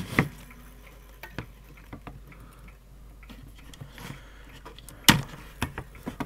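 Scattered small clicks and taps over a faint steady background hum, the loudest click about five seconds in.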